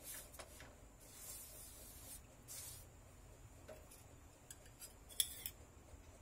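Soft scraping and rustling of a flatbread being handled on a nonstick tawa, then a few sharp metal clinks about five seconds in from a steel bowl and spoon at the pan.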